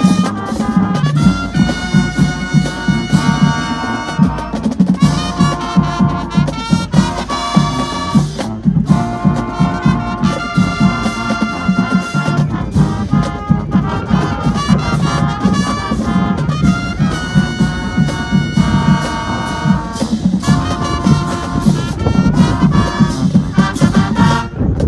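Marching band playing loudly, its brass section sounding sustained chords and phrases over a steady drum beat.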